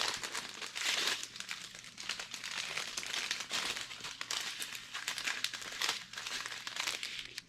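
Small plastic bags of diamond painting drills crinkling and crackling as they are handled, in irregular bursts.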